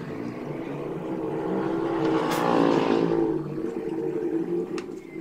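Engine of a passing motor vehicle, growing louder to a peak about two and a half seconds in and then fading.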